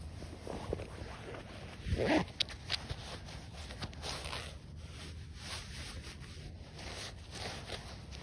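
Footsteps on grass and rustling from a handheld phone being moved around, with a louder thump about two seconds in.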